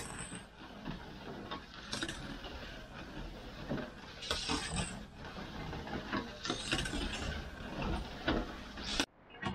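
Long wooden paddle stirring a large iron pan of boiling candy syrup: scraping and knocking strokes that surge about every two seconds, with clicks and clatter between them.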